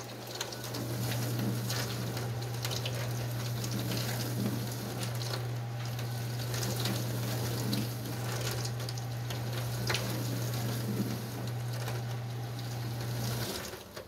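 Dishwasher running a wash cycle clogged with suds from dish soap: water spraying and splashing inside the tub over a steady low hum from the wash pump. The pump is pulling in foam and not building enough pressure, so the wash arm is slowing. The hum and spray cut off near the end.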